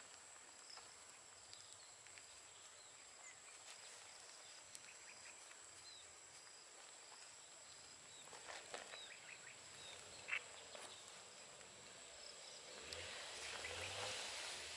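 Faint outdoor ambience: a steady high-pitched insect drone with a pulsing chirp over it, a few soft rustles, and a brief squeak about ten seconds in.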